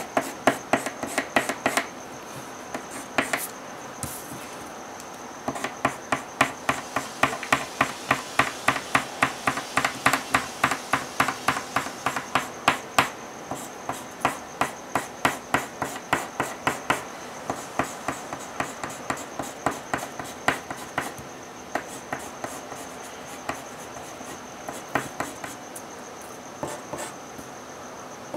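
Colouring strokes on paper: a drawing tool scratching quickly back and forth, about three or four strokes a second, stopping briefly a couple of times.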